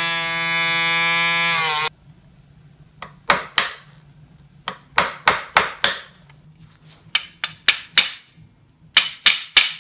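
Small rotary tool grinding down the head of a steel pivot pin with a steady whine, cutting off about two seconds in. Then a hammer taps the pin out of the aluminium tong head, about a dozen sharp metal strikes in quick groups of two to four.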